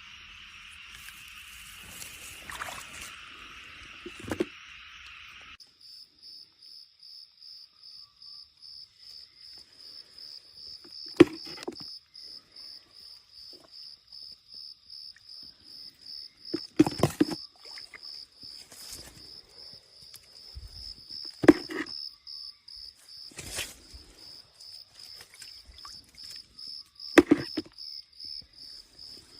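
For the first five and a half seconds there is a steady insect buzz. It changes abruptly to an insect chirping in even, high pulses, about three a second. Four loud sharp thumps break in, spaced several seconds apart.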